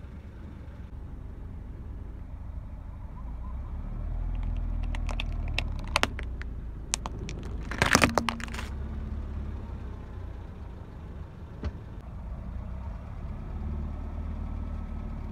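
A car creeps forward with a low engine and tyre rumble while its tyre crushes hard plastic toy birds on asphalt. There are scattered sharp cracks and snaps, the loudest burst of crunching about eight seconds in, and one last snap a few seconds later.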